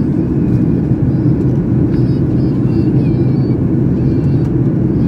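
Steady cabin roar inside a Boeing 737-800 descending with CFM56 engines: a dense, even rumble of engine and airflow noise, with faint passenger voices in the background.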